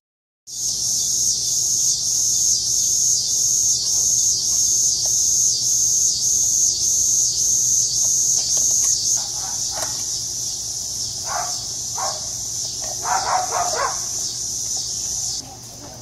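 Loud insect chorus outdoors, an even high buzz pulsing a few times a second, with a few short animal calls between about nine and fourteen seconds in. It starts just after a moment's silence and drops away suddenly near the end.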